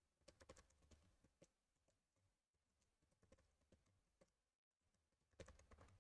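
Faint computer keyboard typing: short runs of keystrokes in a few groups, the busiest near the end.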